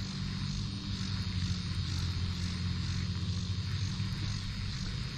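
A steady low mechanical drone, like a motor or engine running at constant speed.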